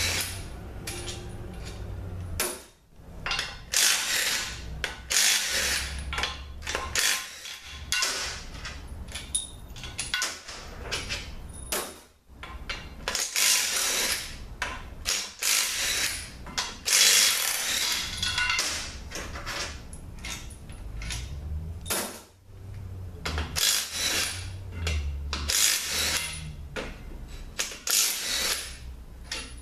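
DeWalt cordless impact gun rattling out the bell housing bolts of a ZF5HP24 automatic transmission, in short repeated bursts with brief pauses between bolts.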